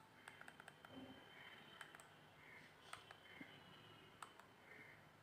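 Near silence with faint, irregular clicks of a Symphony PD1 4G feature phone's keypad buttons being pressed.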